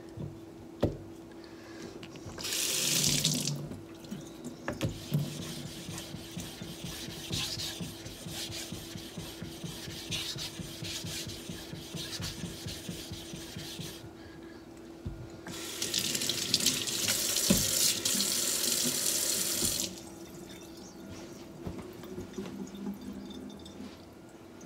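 Kitchen tap running water onto a Norton 8K waterstone, briefly about two and a half seconds in and again for several seconds from about fifteen seconds in. Between the two spells, a smaller dark block is rubbed back and forth across the wet stone's face with a soft scraping.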